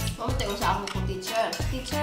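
Background music with a steady bass beat and a singing voice.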